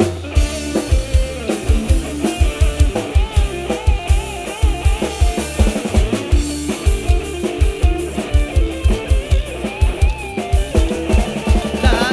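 Live band playing an instrumental break through a large amplified sound system: a drum kit with a fast, steady bass drum and bass guitar under an electric guitar playing a lead melody.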